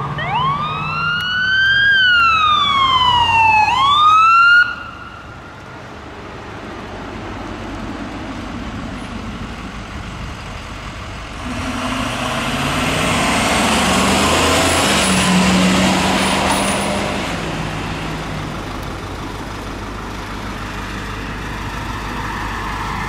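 Electronic wail siren on a fire department utility pickup, rising and falling once and rising again, then cutting off suddenly about four and a half seconds in. Later an ambulance drives past, its engine and tyres swelling to loudest about halfway through and fading away.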